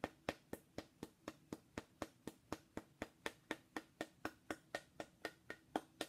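A thin rod tapping a small carved figurine in a steady rhythm of light clicks, about four a second, striking acupuncture points on the figure (Triple Warmer 16 and 17).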